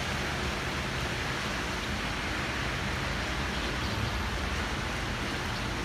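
Steady hiss of rain with a low rumble of street traffic underneath.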